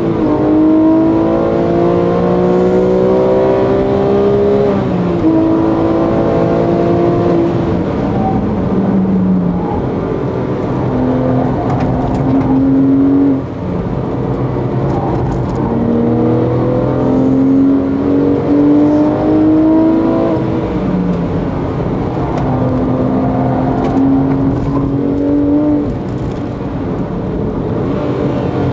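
Porsche 911 GT3 flat-six engine heard from inside the cabin under hard track driving. Its pitch climbs steadily under acceleration and drops back sharply several times at gear changes and lifts for corners.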